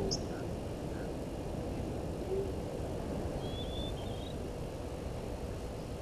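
Open bush ambience: a steady low rumbling background with a few faint, brief bird chirps about three and a half to four seconds in.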